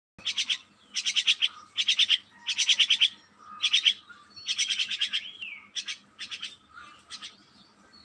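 Myna calling close by: a string of short bursts of rapid chattering notes, with a brief falling whistle about five seconds in.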